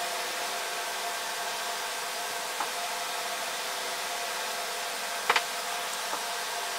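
Steady rushing noise of a fan-like machine with a faint hum, broken by a few light clicks, a double click about five seconds in.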